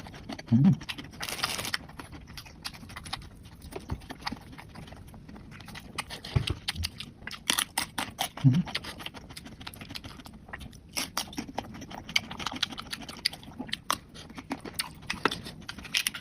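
A person eating: many quick, irregular crunches and clicks of chewing, with a couple of short low mouth sounds in between.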